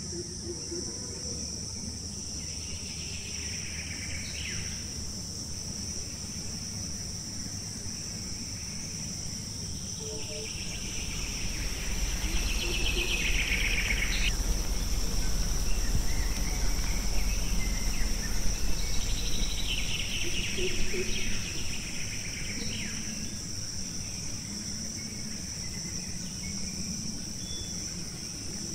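A forest insect chorus: a steady high buzzing drone, with three louder rising insect calls that build and cut off sharply. A low rumble swells for several seconds in the middle.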